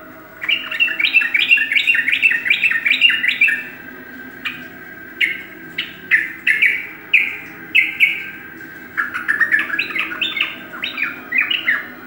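Caged yellow-vented bulbul (trucukan) singing: a fast, bubbly run of chattering notes, then a few separate down-slurred calls, then another quick bubbly run near the end, over a faint steady hum.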